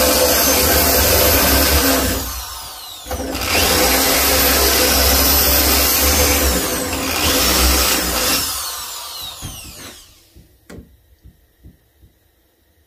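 Electric drill with a large bit boring into the bone of a deer antler skull cap to countersink the screw holes. It runs for about two seconds, eases off briefly, then runs again for about five seconds, its pitch sliding up and down, before winding down, followed by a few light knocks.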